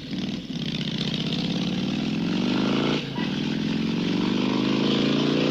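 A vehicle engine accelerating with its pitch climbing steadily, a brief drop about three seconds in like a gear change, then climbing again.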